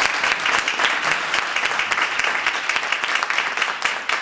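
An audience applauding steadily, slowly dying down.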